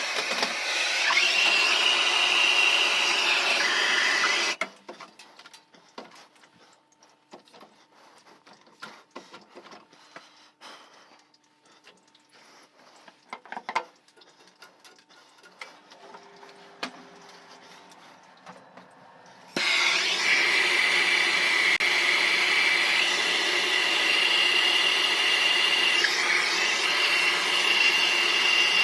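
A motor running steadily with a high whine and a rushing noise, which cuts off suddenly about four and a half seconds in. Quiet clicks and handling sounds follow, and the motor starts up again abruptly about 20 seconds in.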